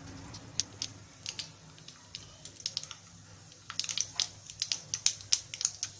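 Mustard seeds popping in hot oil in a small tadka pan: sizzling with scattered sharp pops that come much thicker and faster a little past halfway as the seeds start to splutter.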